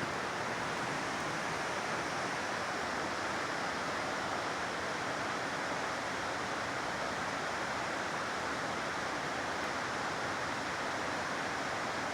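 Steady, even rushing of a nearby creek.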